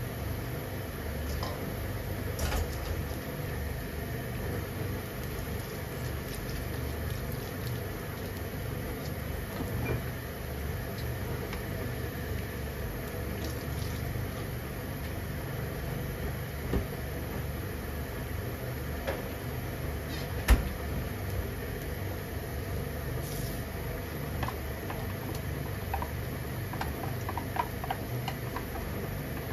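Steady low rushing noise of a kitchen at work, with a few sharp clinks, the loudest about twenty seconds in.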